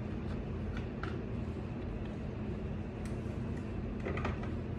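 Steady low room hum with a few faint, light clicks and knocks of kitchen things being handled, and a short cluster of clicks near the end as an upper kitchen cabinet is opened.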